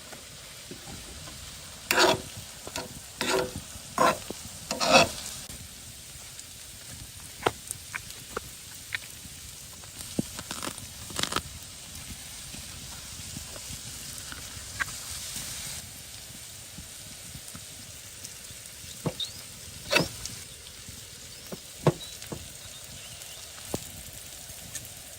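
Food sizzling steadily as it fries in a pan, with sharp knocks and clinks of a utensil stirring it: a quick run of about five a couple of seconds in, a few more midway and near the end.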